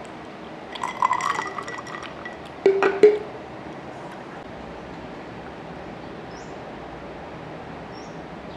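Drink being poured from a bottle into a drinking glass, with light clinks of glass, for about a second and a half. About three seconds in come two louder knocks of glass on glass.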